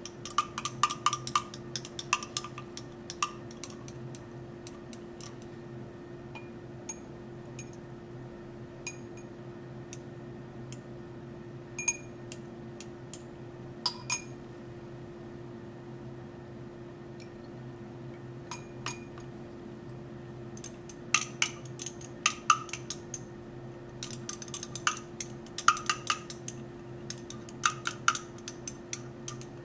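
Glassware clinking: a glass stirring rod and graduated cylinder tapping against each other and the rim of a glass beaker while the thick aloe vera gel and ethanol mix is scraped out. The light clinks ring briefly; they come in a cluster at first, thin out in the middle, and come thick and fast in the last several seconds. A steady low hum runs underneath.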